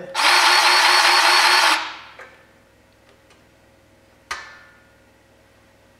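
DeWalt cordless grease gun's motor running for a little under two seconds with a steady whine as it pumps grease into the engine stand's geared head. A single sharp metallic click follows about four seconds in.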